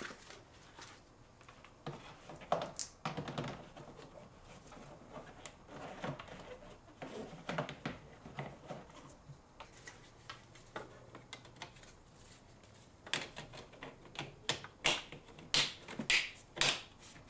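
Scattered clicks and knocks of plastic engine-bay parts being handled and fitted back into place, with a quick run of sharp clicks near the end.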